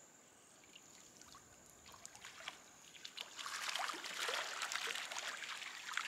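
Water splashing and streaming off a mesh yabby net as it is hauled by its rope out of a dam. The splashing starts about three seconds in and carries on as the net comes up dripping.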